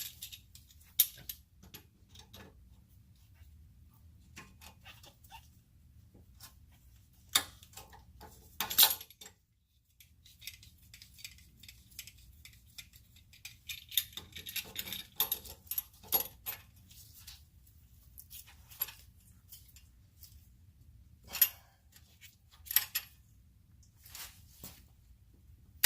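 Hand tools clinking and rattling against metal under a car, in scattered clanks with quiet gaps: a wrench and sockets being fumbled and worked on exhaust bolts. A faint low hum runs underneath.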